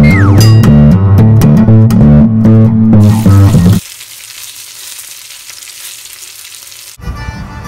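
Bass-and-guitar music that cuts off suddenly about four seconds in, leaving breaded fillets sizzling in a frying pan as a steady hiss; the music comes back near the end.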